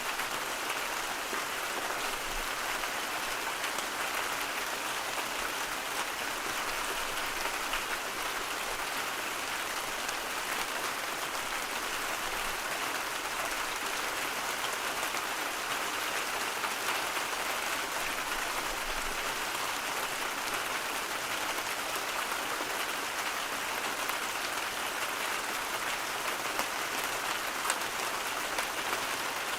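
Steady rain used as white noise: a dense, even hiss of falling drops with a fine patter and no change in strength.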